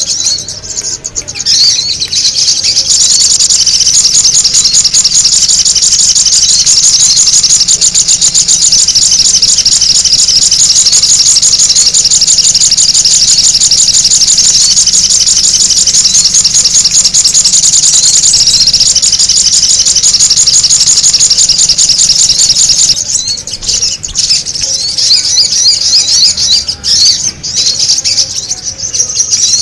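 Loud, noisy calls of the sogon bird, played as a trapping lure: a dense, unbroken run of rapid high chirps that about three quarters of the way through breaks up into scattered chirps.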